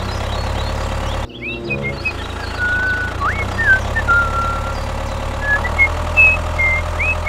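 Small electric motor of a DIY model mini bulldozer running with a steady hum, with an abrupt break about a second in. Birds chirp now and then over it.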